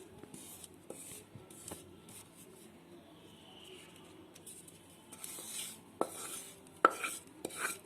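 A utensil scraping the hot jaggery mixture out of the kadhai and spreading it in a greased thali: soft scraping at first, then a run of sharp metal clinks and scrapes from about five seconds in.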